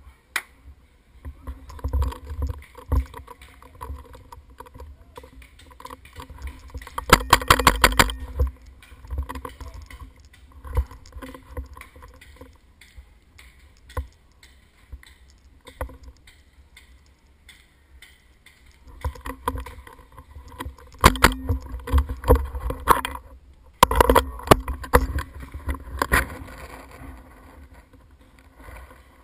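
Paintball markers firing rapid strings of shots: a long burst about a quarter of the way in and several more bursts in the last third, over a low rumble.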